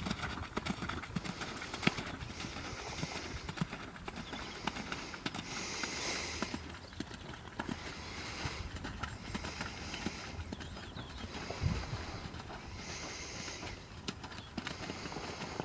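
Hoofbeats of a horse cantering on a sand arena, a running patter of soft muffled footfalls.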